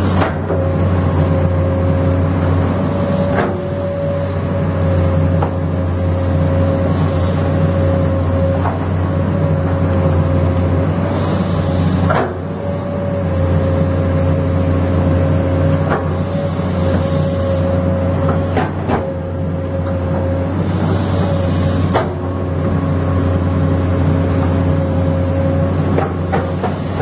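Komatsu excavator's diesel engine running steadily under load, with a constant whine over the drone. Several sharp knocks and a few short bursts of hiss come through at intervals.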